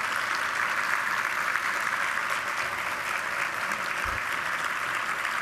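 Large audience applauding, a steady spread of clapping.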